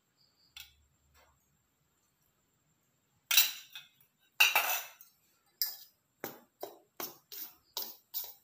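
Metal spoon scraping and clinking in a stainless steel bowl of dry powdered sugar. Two longer, louder scrapes come about three and four seconds in. After that the stirring settles into steady short strokes, about two or three a second.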